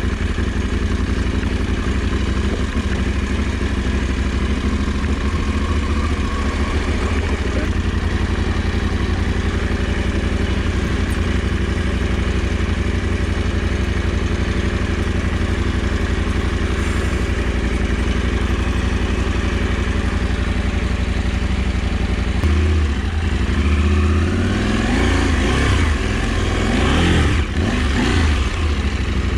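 KTM 790 Adventure's parallel-twin engine running steadily under way. Near the end the revs rise and fall several times.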